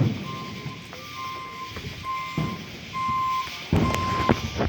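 A vehicle's reversing alarm beeping steadily, one tone about once a second, as a truck backs up. Deep firework bangs thump in over it, the loudest near the end.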